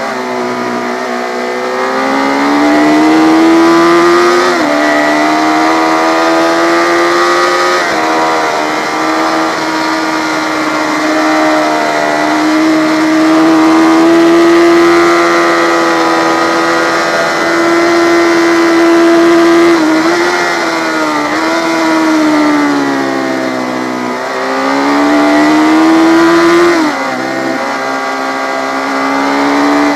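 Yamaha FZ600 race motorcycle's inline-four engine held at high revs, its pitch climbing and then dropping sharply at each upshift, with slower dips where the throttle eases off.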